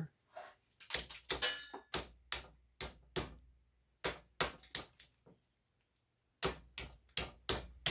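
Hammer blows on a ceiling fan part, smashing it to get at the copper wire inside. There is a fast run of sharp strikes, a short pause about six seconds in, then a few more.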